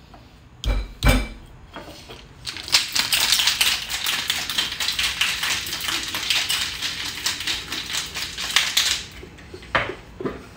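Boston-style cocktail shaker, a metal tin over a mixing glass, is closed with two thumps, then shaken hard for about six seconds with ice rattling rapidly inside. A single knock comes near the end.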